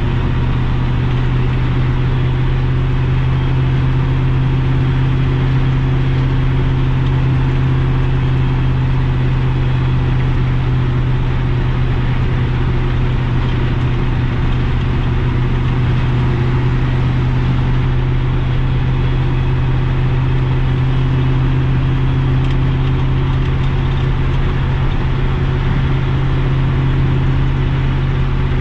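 6.0 Vortec V8 in a square-body Chevy K30 one-ton pickup, running at a steady drone while pulling a loaded trailer. The pitch holds the same throughout, as at a steady cruising speed. The truck still has exhaust leaks.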